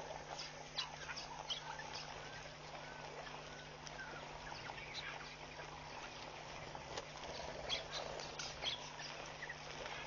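Faint waterhole ambience: scattered short bird chirps and calls over a steady low hum.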